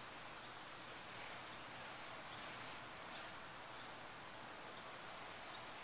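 Faint, steady outdoor backyard ambience: an even hiss, with a few faint high chirps around the middle.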